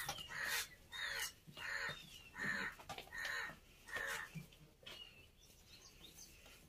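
Crows cawing: a run of about six short caws, one every half to one second, that stops about four and a half seconds in. A few faint chirps of smaller birds are heard among them.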